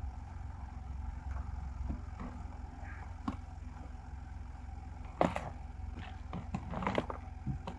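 Scattered knocks and clunks of a box and gear being handled on a quad bike's cargo rack, the sharpest about five seconds in and a cluster near the end, over a steady low rumble.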